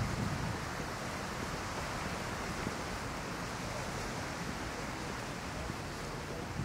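Steady outdoor ambience of wind and sea waves washing on the shore.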